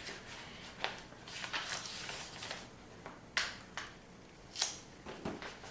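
Scattered brief rustles and small clicks of handling, about half a dozen, with no voices.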